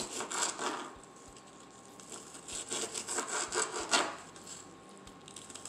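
Kitchen knife sawing back and forth through fried pork rind with meat (chicharrón) on a plastic cutting board, chopping it into small pieces. The quick strokes come in two spells, a quieter pause between them, and the loudest stroke comes about four seconds in.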